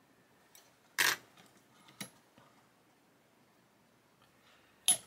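Small hard clicks of plastic model-kit parts and tools being handled and set down on a workbench: three sharp taps, the loudest about a second in, another a second later and one near the end.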